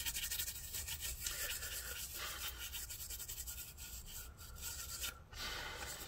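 Cotton swab scrubbing a laptop motherboard in quick back-and-forth strokes, rubbing off corrosion left by a liquid spill.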